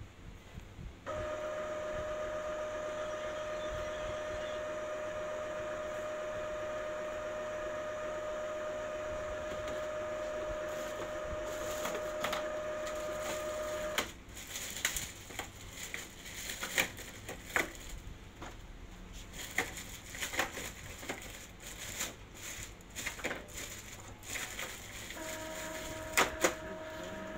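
Epson L3150 ink-tank printer running its internal mechanism with a steady hum that starts about a second in and stops about halfway. A run of irregular clicks and rattles follows, and the hum returns near the end.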